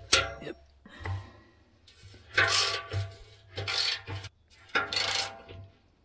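Short bursts of metal scraping and knocking on the steel drum of an old concrete mixer, about six in all, with the drum ringing in each.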